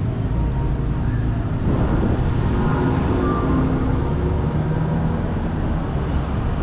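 City street traffic noise: road vehicles running steadily past, with a low engine hum throughout.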